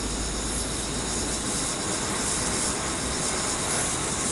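A box-type ground firework burning with a steady rushing hiss, with insects chirping behind it.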